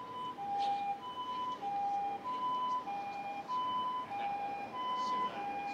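Japanese ambulance's two-tone siren, alternating steadily between a high and a low note about every half second.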